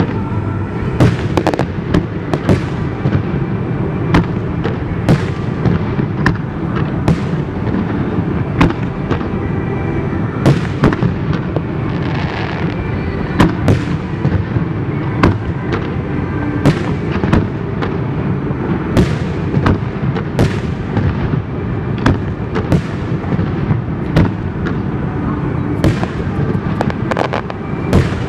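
Aerial fireworks shells bursting one after another, a sharp bang every second or so over a continuous low rumble of overlapping booms.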